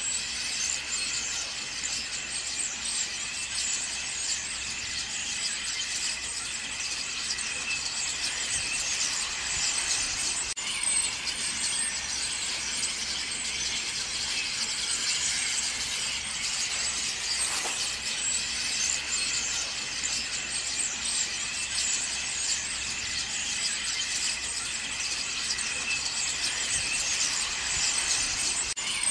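A flock of common starlings chattering together: a steady, dense mass of overlapping clicks and high whistles.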